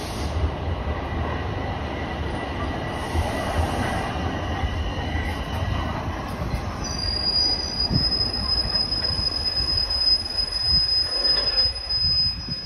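TTC Toronto Rocket subway train rumbling along the station platform, with a thin, high wheel squeal that starts about seven seconds in and holds steady.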